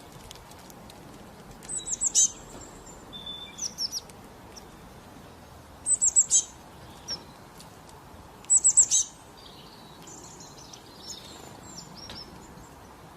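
Small songbird chirping: three bursts of rapid, high, falling chirp notes, a few seconds apart, with fainter calls between them.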